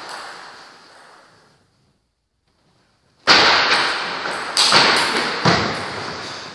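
Table tennis rally in a large, echoing hall: a few sharp knocks of the ball off rackets and table, mixed with thuds of players' feet on the wooden floor. The sound fades out completely about a second and a half in, then cuts back in suddenly about three seconds in.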